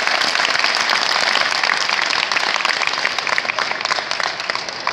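Spectators applauding, a dense patter of hand claps that eases off near the end.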